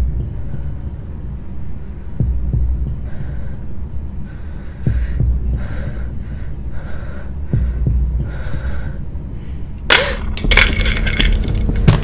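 Horror-film sound design: a slow, low heartbeat-like pulse about every two and a half seconds over a steady low hum, then a sudden loud, harsh crash about ten seconds in that keeps clattering to the end.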